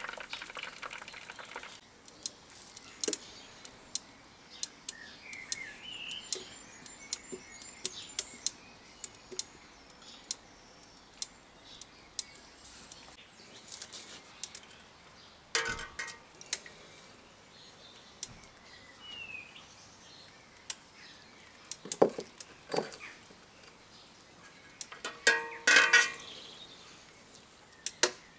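Propane forge burner hissing, cut off about two seconds in. Then scattered sharp ticks and metal clinks, with louder clanks at about 16 s, 22 s and twice around 25–26 s, as a tool hung on a wire knocks against a steel oil pot, and a few short bird chirps.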